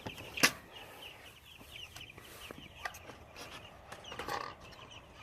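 A flock of young chicks peeping, many short high falling peeps in quick succession. A sharp knock comes about half a second in, and a lighter one near three seconds.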